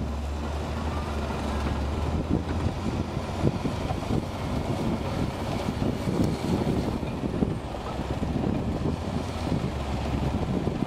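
Portafill 5000CT mobile screening plant running steadily as it screens manure, its engine giving a constant low drone under the rumble of the working machine. Wind buffets the microphone.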